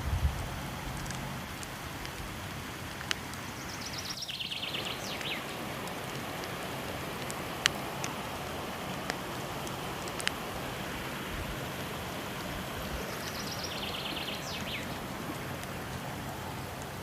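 Steady rushing of a waterfall mixed with a wood fire burning, with a few sharp crackling pops from the fire. A high, quick trill comes twice, about nine seconds apart.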